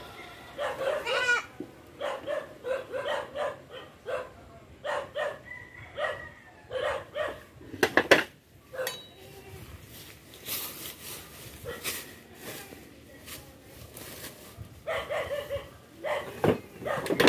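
A bamboo pole jabbed into the ground of a snake burrow gives a quick cluster of sharp knocks about eight seconds in. Short voice-like calls come and go throughout.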